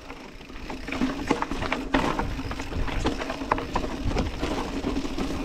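Orbea Occam full-suspension mountain bike rolling slowly down a rocky trail: tyres crunching over loose stones, with many sharp clicks and rattles from the bike at each bump over a steady low rumble.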